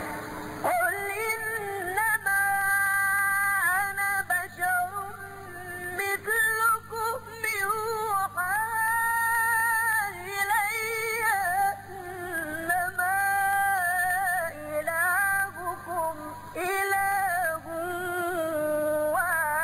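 A single high voice reciting the Quran in melodic tajweed style: long held, wavering notes in phrases of a few seconds, with short pauses between them.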